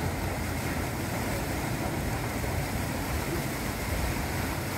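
Steady rushing and churning of the whitewater on an artificial standing surf wave.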